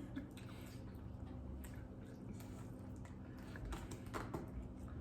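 Someone eating fries: soft chewing and scattered small clicks and crinkles from eating close to the microphone, over a faint steady low hum.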